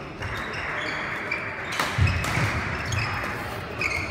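Badminton rally on an indoor court: sharp racket hits on the shuttlecock starting about two seconds in, with sports shoes squeaking and feet thudding on the court floor.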